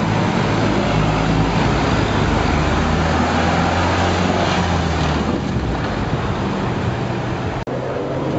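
Dense city street traffic passing close by: a steady wash of engine and tyre noise from cars, motorcycles and a city bus. The bus's engine hum swells as it goes past about halfway through.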